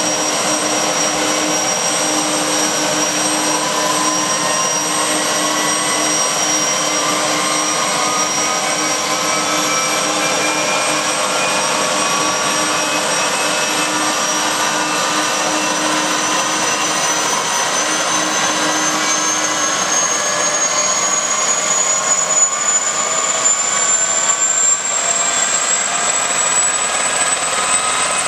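Aérospatiale SA 342 Gazelle helicopter running on the ground, its Astazou turboshaft and rotor giving a steady high turbine whine that rises slowly in pitch as the engine winds up.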